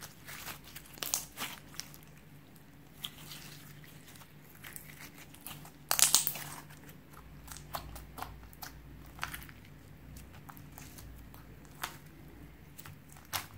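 Slime being squished and mixed by hand, with scattered sticky clicks and crackles. The loudest burst comes about six seconds in.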